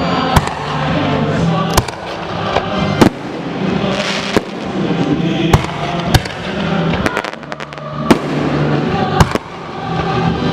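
Aerial fireworks bursting in a string of sharp bangs about once a second, a few coming close together about two-thirds of the way through.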